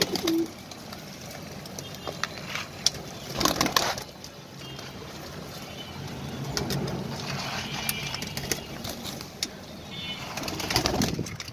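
A crowded flock of domestic pigeons feeding on scattered grain: many quick pecking clicks, with wings and feathers brushing as they jostle, a louder flurry about three and a half seconds in, and occasional low cooing.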